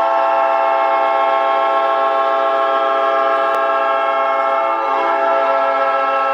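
Winnipeg Jets' hockey goal horn sounding one long, steady, loud multi-note chord, with a slight shift in its lower notes about five seconds in.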